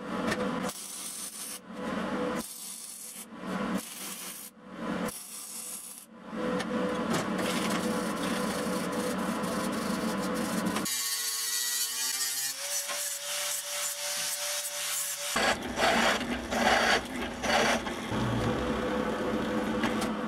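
Rasping strokes of a hand tool working steel, at first as separate back-and-forth strokes with short gaps, then as steadier continuous rasping. About halfway through, a motor whine rises in pitch, holds steady for a few seconds and stops, and the rasping resumes.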